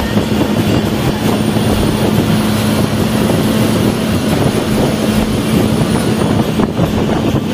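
Steady drone of a bus engine and road noise heard from inside the cabin while cruising on a highway, with a steady low hum running under it.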